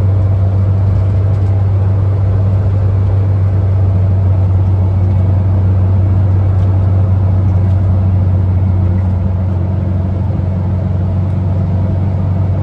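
1970 Volkswagen Type 2 single-cab pickup's air-cooled flat-four engine, with road noise, heard from inside the cab while cruising at a steady speed: a loud, steady low drone that eases slightly in the second half.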